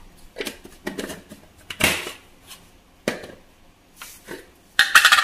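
Scattered clicks and knocks of kitchen containers being handled, a plastic lid and steel bowls, with a quick cluster of clicks near the end.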